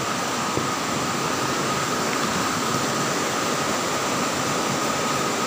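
Steady rushing noise with a faint constant high whine running under it, with no distinct events.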